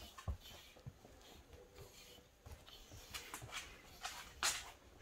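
Grooming rake drawn through a fluffy dog's thick undercoat: faint swishing strokes with soft low knocks, and one louder swish near the end.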